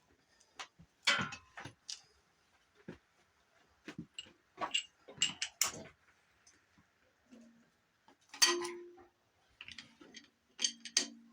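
Hand ratchet and socket working on cylinder head bolts: scattered metallic clicks and clinks of the socket being fitted and the ratchet turning, with a louder clank a little past halfway.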